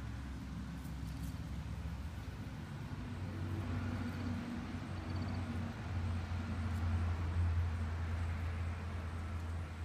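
Low rumble of a motor vehicle passing nearby, growing louder from about four seconds in and easing off near the end.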